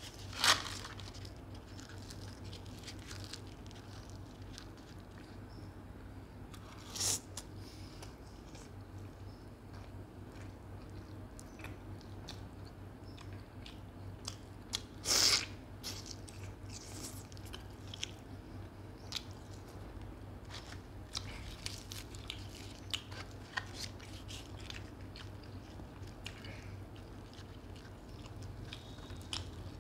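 Close-up eating sounds of chicken curry and puri eaten by hand: chewing, biting and wet mouth sounds, with many small ticks and a few louder sharp bites, the loudest about half a second in, others about seven and fifteen seconds in. A steady low hum runs underneath.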